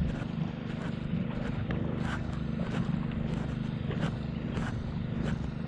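An engine running steadily with an even, low hum, with faint light ticks over it.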